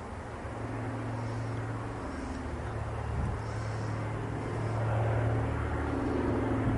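Douglas C-47 Dakota flying low overhead on its twin radial engines, a steady low propeller hum that grows louder through the pass.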